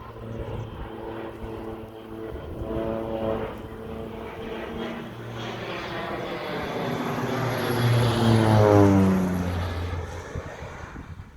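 Crop-dusting airplane making a low pass: its engine and propeller grow louder, peak about nine seconds in, then drop in pitch as it goes by and fade away.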